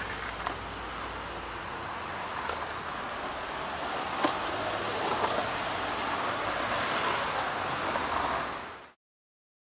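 Longboard's urethane wheels rolling fast on pavement: a steady rolling rumble with a couple of sharp clacks, fading out near the end.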